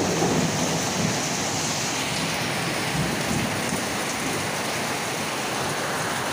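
Heavy tropical downpour: steady, hard rain with water pouring off a roof edge.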